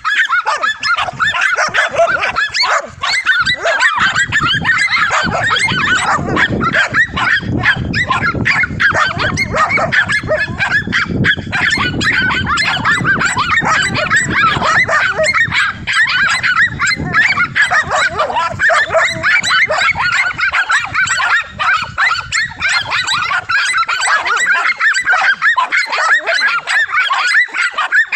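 Several dogs barking without pause, many barks overlapping, as they hold a cornered lizard at bay.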